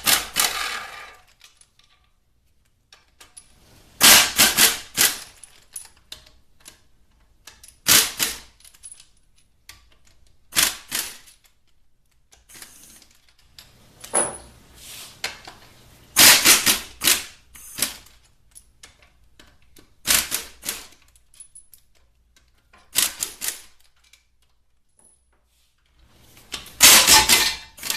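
Impact wrench hammering in short rattling bursts of about a second each, roughly every two to four seconds, as it breaks loose and spins out the Torx Plus bell housing bolts on a 4L60E transmission case.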